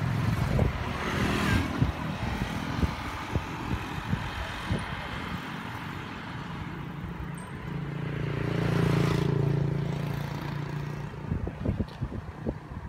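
Road traffic, with a motor vehicle's engine hum swelling and fading as it passes, loudest about nine seconds in.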